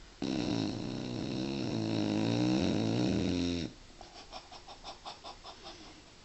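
Dog snoring in deep sleep: one long, loud, pitched snore of about three and a half seconds, then a quieter rapid pulsing, about five pulses a second.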